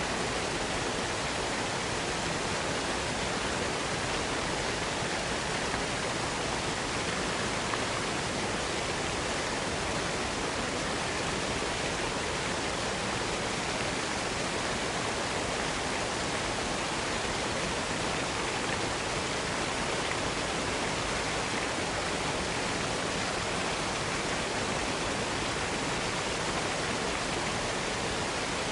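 Waterfall: falling water rushing in a steady, unbroken hiss with no changes.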